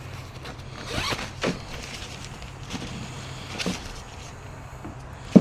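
A few short rasps and rustles of a new fridge's packaging and accessories being handled during unboxing, over a steady low hum.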